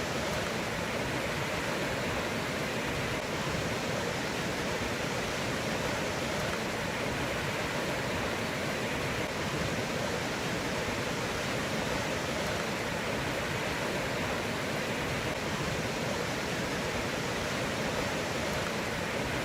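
Rushing floodwater from a river in flash flood, a steady unbroken wash of noise with no change throughout.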